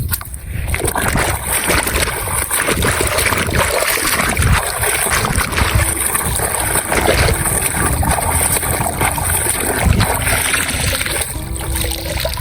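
Water splashing and sloshing while toy vehicles are washed, with quiet background music underneath.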